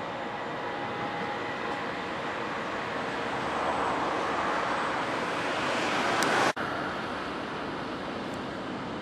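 Electric multiple unit running past close by, with a faint steady whine early on; the running noise swells to a peak about six and a half seconds in and then cuts off abruptly, leaving a lower steady rumble.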